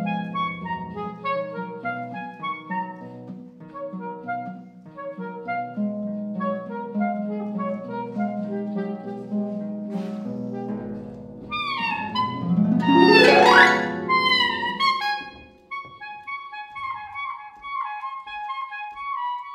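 Live saxophone and harp duet in a contemporary classical piece: sustained low saxophone notes over plucked harp notes, building to a loud, fast upward sweep about thirteen seconds in. After the sweep come quieter, higher plucked notes.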